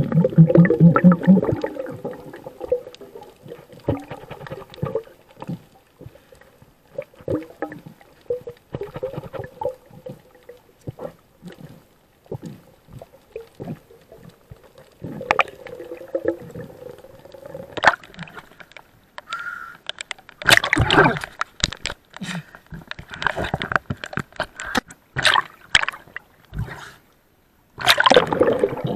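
Underwater sound around a diver's camera: gurgling, sloshing water with many scattered short clicks and crackles. Louder bubbling rushes come about 20 seconds in and again near the end.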